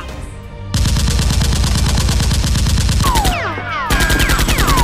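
Sound effect of automatic gunfire: a long rapid burst starts a little under a second in, breaks off briefly past the three-second mark, then a second burst follows. Descending ringing whines sound over the gunfire near the break.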